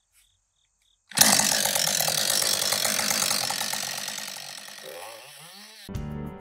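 Gas chainsaw pull-started with the leg-lock method, catching suddenly about a second in and running loudly, then growing steadily quieter. Music comes in near the end.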